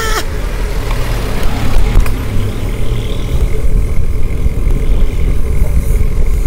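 Wind rushing on the microphone of a moving bicycle, with road traffic.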